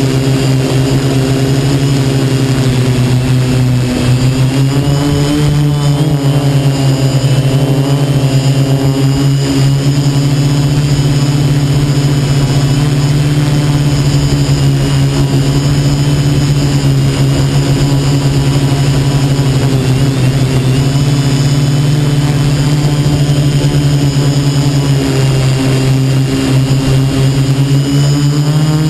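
Quadcopter's brushless motors and propellers running steadily, heard from on board, their buzz shifting in pitch with the throttle and stepping up about four seconds in and again near the end.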